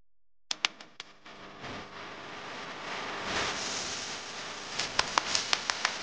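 Sharp clicks and knocks over a steady hiss: a small 1:16 RC rock crawler clattering over stone steps. A few clicks come just after the start, and a quicker run of about seven comes near the end.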